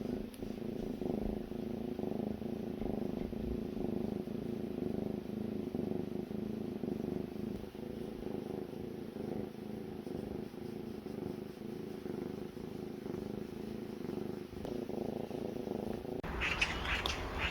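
Young cat snoring in its sleep: a steady low rumble. Near the end a different, higher rasping sound comes in over it.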